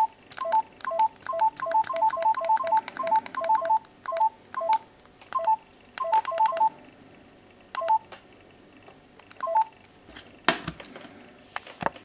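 Keypad tones of a teXet B200 push-button mobile phone: a short beep with a click for each key press, about three to four presses a second, then a few slower presses. About ten and a half seconds in, a single thump, the loudest sound, as the phone is set down on the table.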